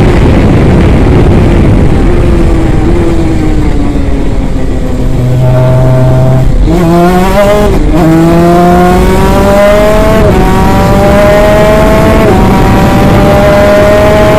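Onboard sound of a 250cc twin-cylinder two-stroke superkart engine under heavy wind rush: the engine note falls for about the first five seconds as the kart slows for a corner, then climbs again as it accelerates, dipping briefly at each of three upshifts in the second half.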